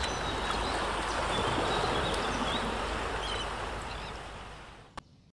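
Steady rushing water with a few faint, short high chirps over it, fading out over the last second or so and ending with a small click.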